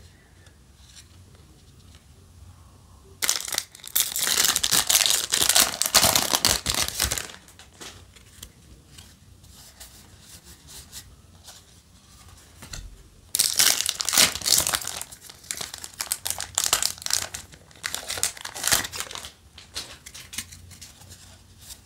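Yu-Gi-Oh! booster pack wrapper being torn open and crinkled in the hands, in two spells of loud crinkling: one about three seconds in lasting some four seconds, another starting a little past halfway.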